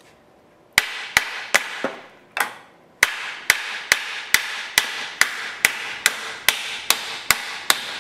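A hammer striking a wooden block to drive a new corner into an aluminium sliding screen door frame: after a short pause, a few uneven knocks, then a steady run of about a dozen knocks at roughly two a second.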